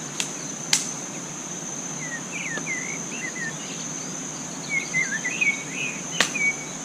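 Forest ambience: an insect drone at one steady high pitch, with a bird's short chirping calls in two spells, around the middle and again near the end. A few sharp clicks stand out, one just after the start, another about a second in, and the loudest near the end.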